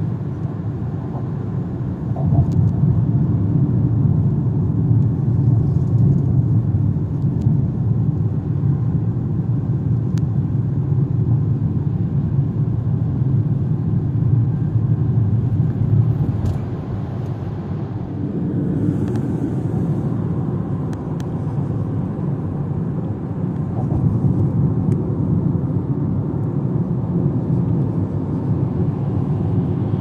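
Haval Jolion crossover driving along, a steady low rumble of road and engine noise that swells about two seconds in, eases off past the middle and builds again later.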